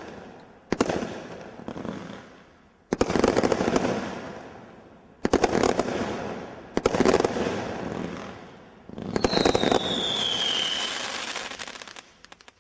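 A 'Thunderstorm' multi-shot firework barrage cake firing in volleys: about five clusters of rapid bangs, each trailing off in crackle. A falling whistle sounds about nine seconds in, and the sound stops suddenly near the end.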